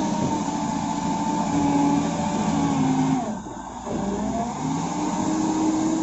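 Caterpillar wheel loader's diesel engine working under load as the bucket digs into a gravel pile and lifts. Its note dips briefly a little past halfway, then picks back up.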